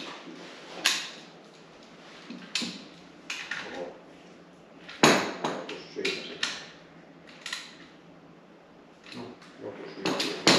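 Metal hand tools clinking and clanking as they are picked up, set down and worked against an engine: a dozen or so irregular sharp clanks, the loudest about five seconds in.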